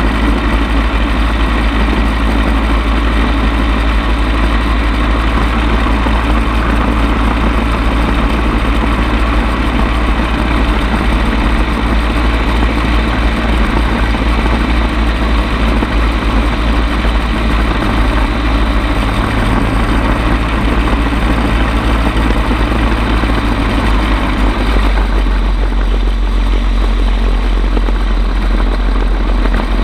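Bensen B-7M gyrocopter in flight, heard from on board: the engine and propeller run steadily under loud wind rush, and the sound turns deeper and duller about 25 seconds in.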